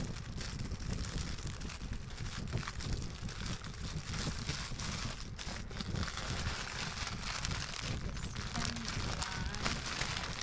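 Plastic packaging crinkling and rustling as a parcel is unwrapped by hand, an irregular rustle throughout.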